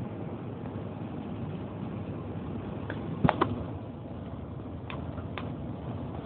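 Steady road and engine noise inside a moving vehicle on a highway. Two sharp knocks come a little past halfway, then two fainter clicks near the end.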